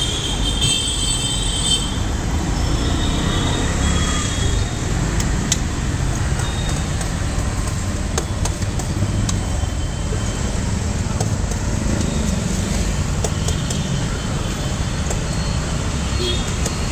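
Steady street traffic noise, a low rumble of passing vehicles, with a few light clicks of a steel spoon against steel dishes.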